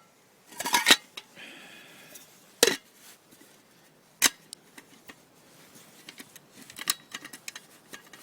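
Metal parts of a nesting camping stove kit knocking and clinking as they are fitted and clipped together: a few sharp knocks within the first second, a brief metallic ring just after, single knocks near three and four seconds, and a quick run of small clicks near seven seconds.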